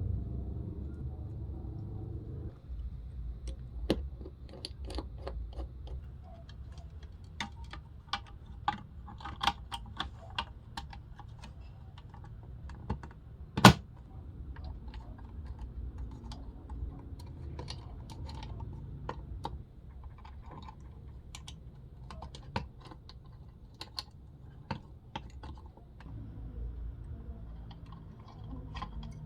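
Small parts of a toy cassette player being handled by hand: irregular light clicks and taps, with one sharp, much louder click about 14 seconds in. A low hum runs under the first couple of seconds.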